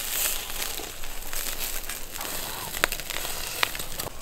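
Charcoal grill crackling and sizzling under pieces of boiled lamb, with two sharp pops near the end.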